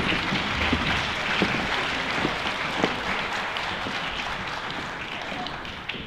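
Audience applauding: a dense patter of many hands clapping that slowly fades away.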